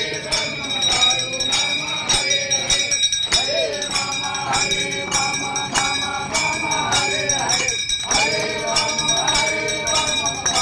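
Group of voices singing a devotional aarti, with bells ringing in a steady beat.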